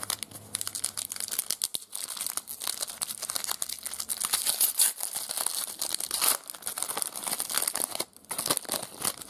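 Foil trading-card pack wrapper crinkling and tearing as hands open it, a dense run of crackling with a short pause near the end.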